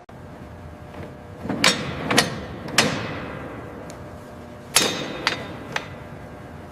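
Sharp metal strikes with a ringing tail, two sets of three about half a second apart, over a steady background noise.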